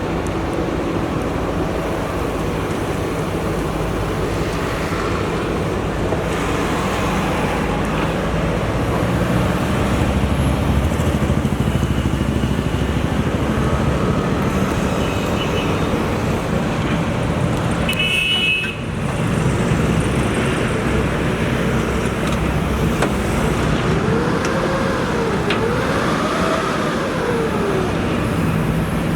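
JCB 3DX backhoe loader's diesel engine running steadily under work, growing louder about a third of the way in, with a brief drop just past the middle. Near the end its pitch rises and falls twice.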